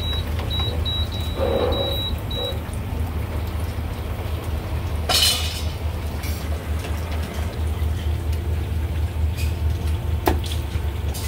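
Steady low rumbling hum of kitchen background noise, with a quick run of short high-pitched beeps in the first two and a half seconds and a brief hiss about five seconds in. Near the end come a few sharp knocks of a cleaver cutting beef brisket on a wooden chopping block.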